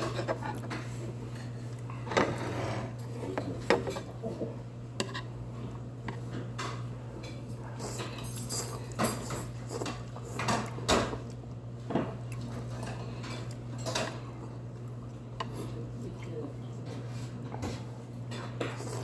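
Metal chopsticks clicking and scraping against metal bowls and a pot while noodles are eaten, with slurping now and then. A steady low hum runs underneath.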